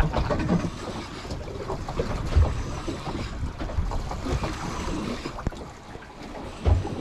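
Wind on the microphone and water washing around a small boat's hull at sea, with two low thumps, about two and a half seconds in and near the end.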